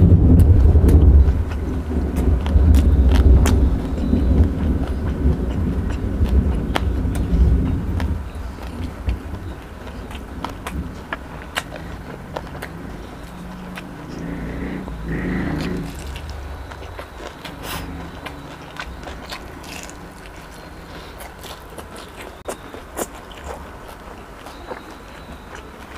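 Close-miked chewing of Korean soy fried chicken, with many sharp wet clicks and crunches throughout. A loud low rumble, thunder in a rainstorm, fills the first eight seconds and then fades.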